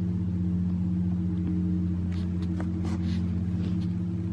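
A steady low rumbling drone with a fine, fast pulse, unchanging throughout, with a few faint ticks about two to three seconds in.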